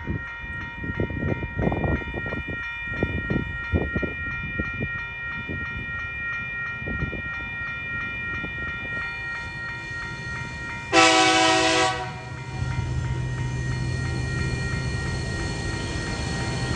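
Level crossing warning bell ringing steadily with a rapid pulse while the red lights flash. About eleven seconds in, an approaching TasRail TR class diesel locomotive sounds one horn blast lasting about a second. After it, the low drone of the locomotive's engine grows louder as it nears.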